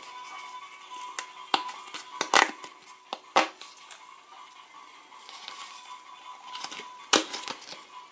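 A paper sticker packet being torn open and handled, then the stickers inside pulled out: a string of sharp crinkles and snaps, a cluster in the first half and another near the end.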